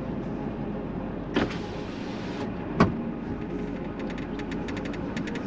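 Steady running noise of a vehicle, with a knock and a short hiss about a second and a half in, a sharp click near the middle, and a quick run of ticks in the last second and a half.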